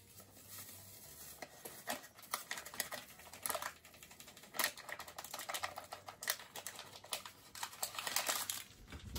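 Crinkling and crackling of an instant pudding mix packet being worked open and emptied into a glass mixing bowl, in quick irregular clicks with louder bursts every second or two.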